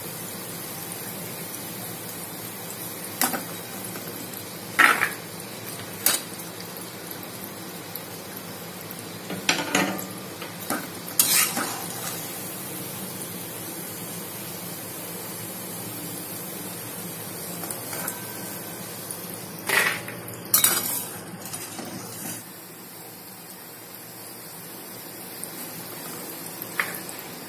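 Pieces of dough deep-frying in hot oil in a metal kadhai with a steady sizzle, while a metal slotted ladle stirs them and clinks and knocks against the pan now and then. The sizzle dips a little about 22 seconds in, then builds again.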